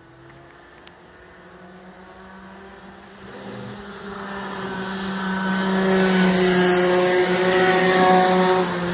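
A racing kart's engine running at a steady high pitch, growing louder over several seconds as the kart approaches and passes, loudest just before it starts to fade near the end.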